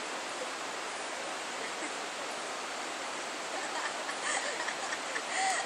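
Steady rushing outdoor noise with no distinct source, with a few faint short calls near the end.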